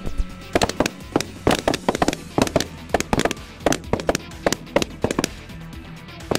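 A fast volley of shotgun fire from several guns, some twenty sharp shots in about five seconds, then one last shot near the end, over background music.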